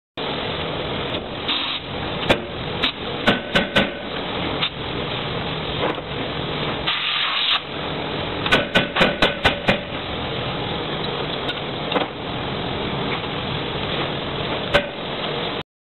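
Forging machine working a red-hot workpiece in its dies: sharp metal blows over steady machinery noise, a few spaced strikes early on, then a quick run of about six about halfway through, and single blows later. A short hiss comes about seven seconds in.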